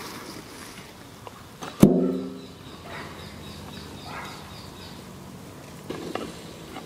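A single sharp metal clank about two seconds in, ringing briefly as it dies away: metal cookware being struck, at the big biryani pot. Faint birds chirping behind it.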